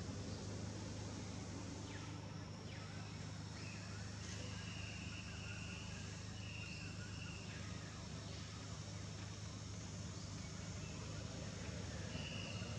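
Outdoor ambience: a steady low hum, with an insect's high, even buzz coming in for a few seconds mid-way and again near the end.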